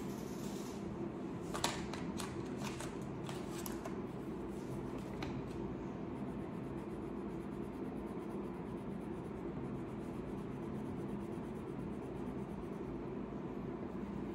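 Crayon scratching and rubbing across paper as a picture is coloured in, over a steady low hum. A handful of short, sharp clicks come in the first five seconds.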